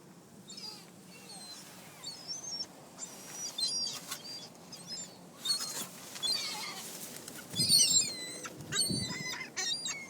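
A flock of gulls calling, with many short squealing calls and wing flaps, busiest and loudest in the second half.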